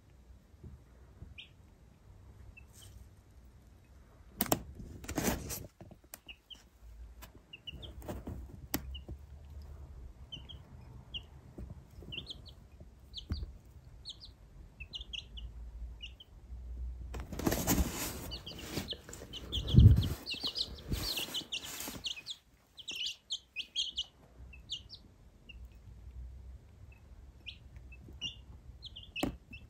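Baby chicks peeping in short, high chirps throughout. A few clicks come early on the way in, and about two-thirds of the way through there is a stretch of rustling with one dull thump, the loudest sound.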